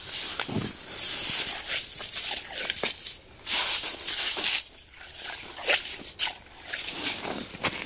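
Hand tool chipping and scraping at ice and packed snow around an ice-fishing hole, in repeated gritty scraping strokes with sharp clicks between them.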